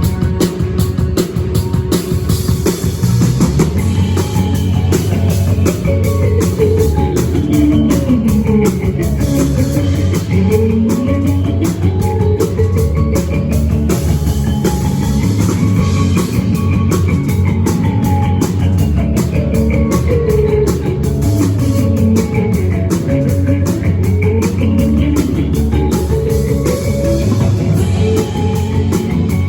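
Rock band playing, electric guitar over a drum kit with a steady beat. A sweeping tone glides down and back up twice, around a third of the way in and again near the end.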